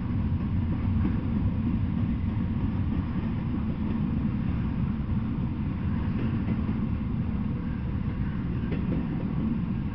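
Double-stack intermodal freight train's well cars rolling past: a steady low rumble of steel wheels on the rails, without a distinct clickety-clack rhythm.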